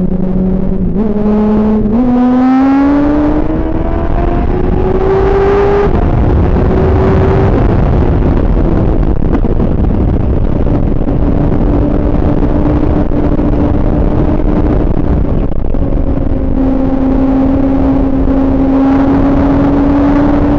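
Yamaha R1 inline-four running through an open exhaust with the baffles removed: the engine pitch climbs under acceleration for the first few seconds, drops, then holds steady at cruising revs with a brief dip and a rise near the end. A loud rush of wind runs under it from about six seconds in.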